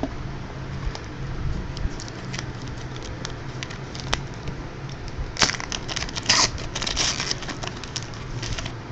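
Trading card pack wrappers crinkling and tearing as packs are opened by hand, with scattered clicks and a denser stretch of crinkling near the end.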